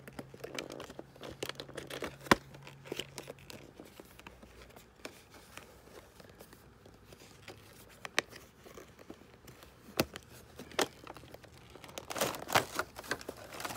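Clear plastic doll packaging, an Azone Pure Neemo box and its plastic insert, crinkling and crackling as it is opened by hand, with scattered sharp snaps. One loud snap comes about two seconds in, and a denser flurry of crinkling comes near the end.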